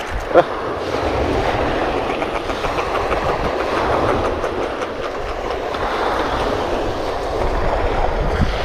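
Surf washing on a pebble beach, a steady rushing noise that swells and eases, with wind rumbling on the microphone. A short squeak sounds about half a second in.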